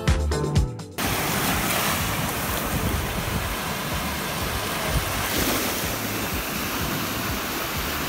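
Music with a steady beat cuts off about a second in, giving way to small waves washing up on a sandy beach: a steady rush of surf.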